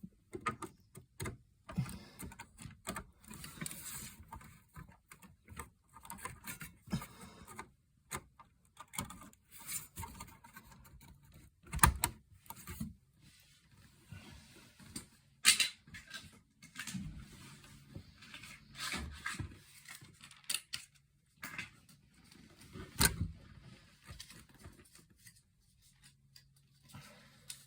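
Irregular clicks, taps and scraping from handling DDR2 memory sticks and the memory slots during a RAM install in a Power Mac G5 Quad, with a few sharper knocks.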